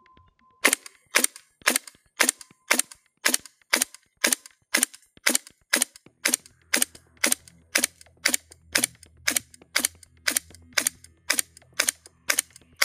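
GHK Steyr AUG gas blowback airsoft rifle firing single shots, about two a second, a steady string of some two dozen shots on the fourth magazine of the gas test. Its report sounds different from normal, which the shooter says does not affect performance.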